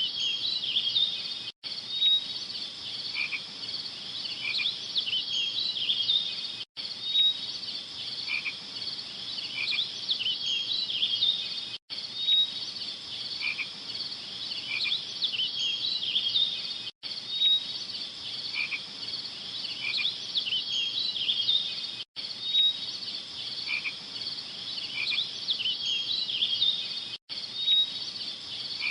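Small animals chirping in a dense chorus, played as a looped background track: the same stretch of about five seconds repeats over and over, with a brief dropout at each join.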